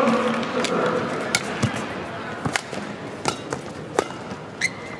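Badminton rally: crisp racket strikes on the shuttlecock come about once a second, with a short squeak of court shoes near the end. A crowd murmur dies away within the first second.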